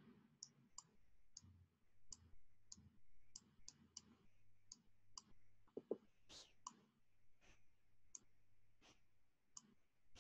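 Faint, irregular computer-mouse clicks while handwriting is drawn on screen with the cursor, about two or three a second.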